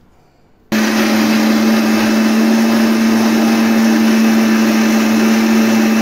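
Electric mixer grinder (mixie) switched on about a second in and running steadily at full speed, grinding coriander leaves, peanuts, chillies and curd into a wet chutney paste, with a steady low hum under the whirr.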